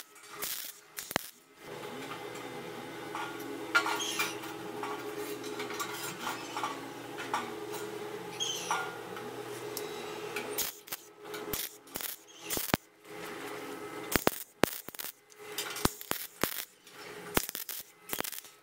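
MIG welder tacking steel in short crackling bursts near the start and through the last several seconds. In between, a steady motor hum with light metal clinks: the grill's gear motor turning the roller chain.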